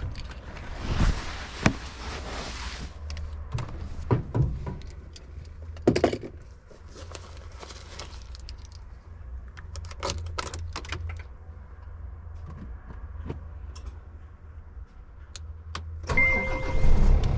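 Keys jangling, with scattered clicks, knocks and rustling as the driver gets into a Scania truck cab, over a low hum. About a second before the end, the level rises: a low rumble and steady beeping dashboard tones begin as the ignition is switched on.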